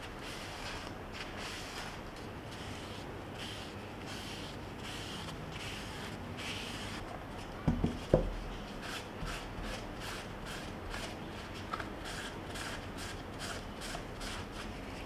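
Tissue and fingers rubbing against the slatted wood of a bamboo steamer basket, with two knocks about halfway through as the basket is handled on the cloth-covered table. In the second half the rubbing turns into quick, short scratchy strokes, several a second.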